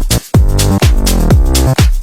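Electronic dance music with a steady four-on-the-floor kick drum and synth chords.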